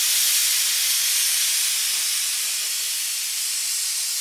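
A stovetop pressure cooker on high heat venting steam hard through its weighted pressure valve: a steady hiss that eases slightly over the seconds.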